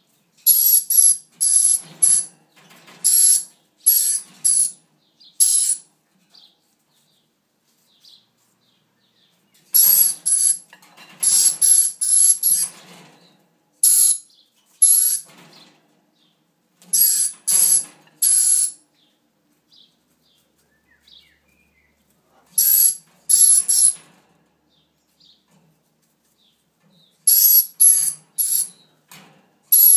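Dusky lory calling: short, shrill calls in runs of several, with silent gaps of a few seconds between runs.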